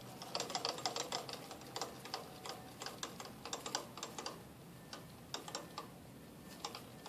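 Light, irregular clicking and ticking, a few small clicks a second, over a faint steady hum.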